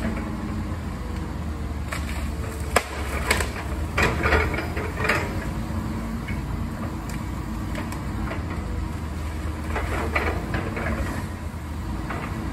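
Small excavator's engine running with a steady low drone while its boom and bucket work in the trees, with scattered sharp cracks and knocks, several close together a few seconds in and more near the end.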